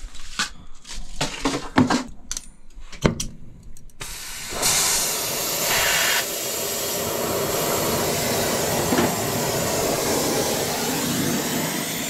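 Clicks and knocks of the torch and hoses being handled, then about four seconds in the oxy-acetylene brazing torch starts with a sudden gas hiss and burns with a steady rushing flame noise.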